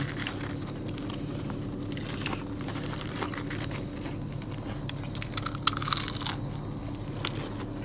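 Close-up crunching and chewing of crispy broasted chicken, with many small sharp clicks as the fried coating is bitten and handled, over a steady low hum.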